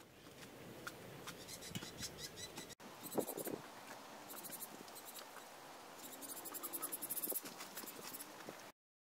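Faint scratching and rustling of hydrated lime being scooped from a sack and scattered by hand over gravel and dirt, with many small clicks; the sound cuts off abruptly near the end.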